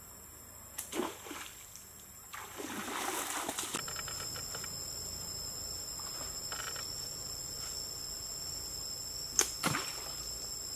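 Homemade slingshot shots: a sharp shot about a second in, followed by splashing in shallow stream water. Another sharp snap of the slingshot comes near the end over a steady high-pitched whine.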